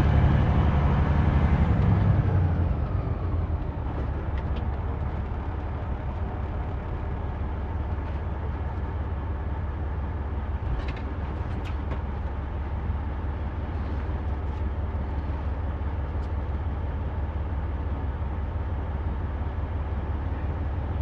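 Semi truck's diesel engine running with a steady low drone, louder for the first couple of seconds and then settling to an even level.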